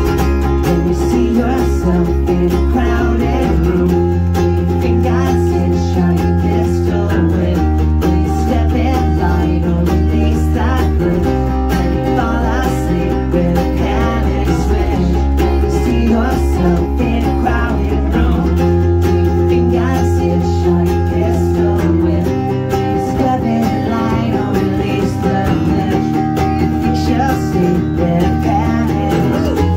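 Acoustic guitar and acoustic bass guitar playing an instrumental passage of a rock song. The bass holds deep notes that change every few seconds under the guitar.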